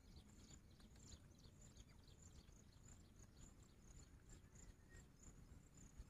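Near silence, with faint, high insect chirping repeating about three to four times a second over a low rumble.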